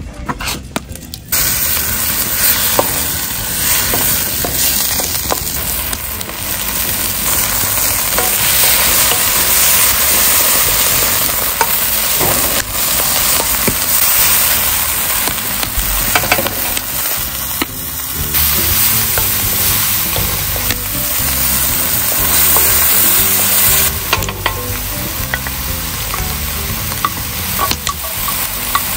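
Minced meat frying in hot oil in a steel wok over a wood fire. The sizzling starts suddenly about a second in, as the meat goes into the pan, and holds steady while a wooden spoon stirs it, with light scrapes and clicks against the pan.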